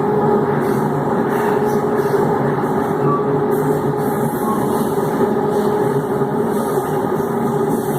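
Electric multiple unit TUE 1726 running, its traction motors giving a steady growl with a constant hum over the rumble of the train.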